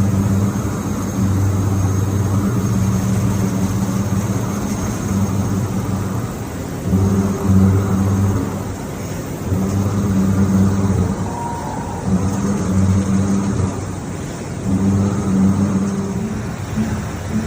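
Five-axis CNC milling machine roughing out a cake mold: a low hum from the cutter and spindle under load, coming and going in stretches of a few seconds as the tool moves into and out of the cut, over a faint steady high whine.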